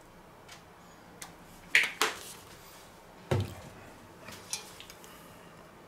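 Clicks and knocks of a sauce bottle being handled and set down on the kitchen counter, the loudest a dull thud about three seconds in.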